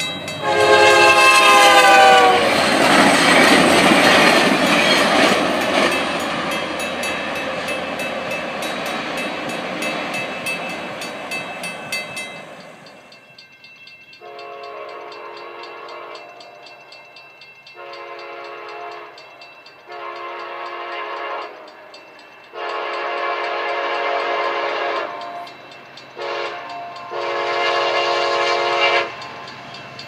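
VIA Rail diesel locomotive horn blowing for a level crossing, its chord dropping in pitch as the train passes, followed by the train's cars rumbling by for about ten seconds. After that, a second train's horn sounds in the distance in a series of long blasts and one short one, ending long, short, long: the grade-crossing warning signal.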